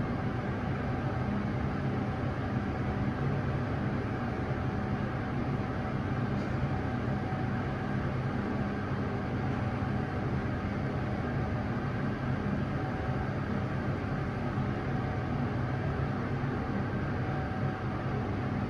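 KONE S MiniSpace traction lift car travelling between floors, giving a steady ride hum and rush with a few constant tones underneath.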